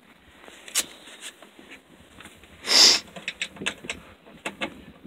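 Scattered small clicks and knocks of hands handling metal parts in a tractor cab, with one louder short rushing noise near the middle.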